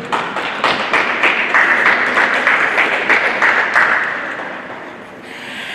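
Audience clapping and applauding in an ice rink, dying away about four seconds in. A steady hiss starts near the end.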